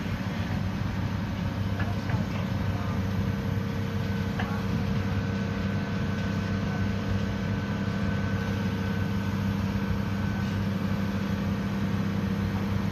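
Caterpillar hydraulic excavator's diesel engine running at a steady, even hum as it holds a steel trench shield on its sling. A faint high whine comes in for several seconds in the middle.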